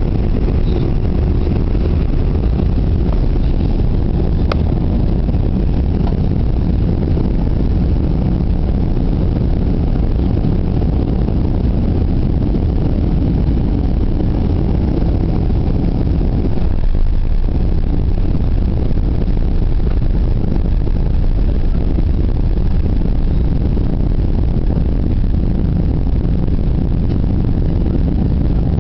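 Steady low rumble inside the cabin of a Boeing 747-400 landing on a wet runway: engine and airflow noise carrying through touchdown and the rollout, with a slight swell about seventeen seconds in.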